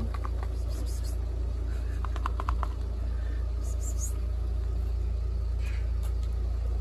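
Steady low rumble, with a quick run of about five short, high chirps about two seconds in.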